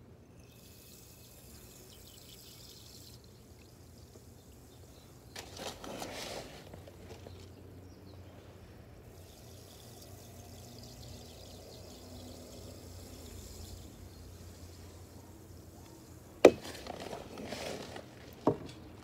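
Water gurgling and pouring as a planted pot of water lilies is lowered into a pond and fills, air bubbling up out of it. Near the end come two sharp knocks, the first the loudest, followed by splashing.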